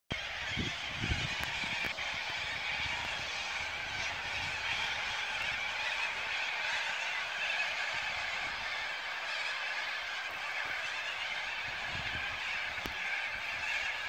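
A huge roosting flock of corellas screeching all at once: a dense, steady chorus of harsh calls with no break. A few low thumps sound near the start.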